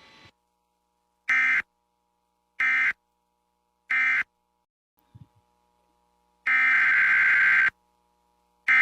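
Emergency Alert System SAME digital data bursts, each a harsh electronic screech. First come three short end-of-message bursts about 1.3 seconds apart, marking the end of the warning. After a pause of a couple of seconds, the first two longer header bursts of the next alert follow.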